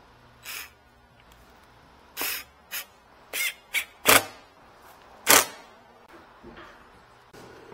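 Cordless driver running in about seven short bursts, backing out the screws of a car's plastic undertray. The two loudest bursts come a little past halfway.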